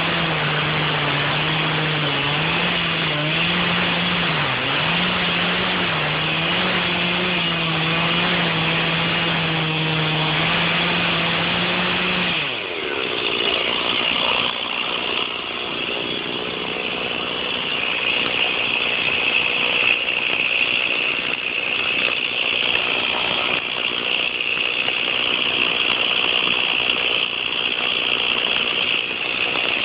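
Stihl chainsaw running: a lower, slightly wavering engine note for about twelve seconds, then a change to a higher, noisier whine that carries on to the end.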